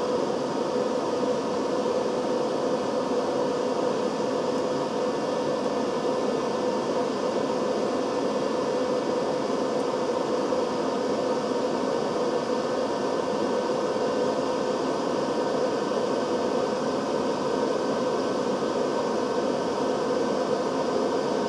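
Steady whirring hum of a fan-type machine: an even hiss with a low steady tone running through it, unchanging.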